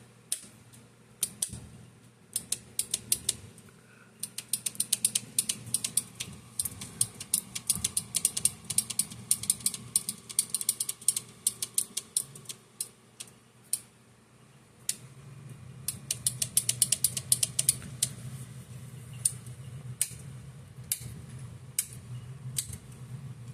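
Switches and push buttons on an elevator control panel being clicked, single clicks at first, then quick runs of many clicks a second. A low steady hum comes in about halfway through.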